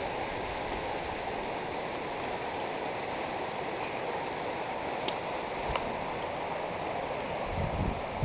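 Creek water rushing over rocks and through riffles, a steady, even rush.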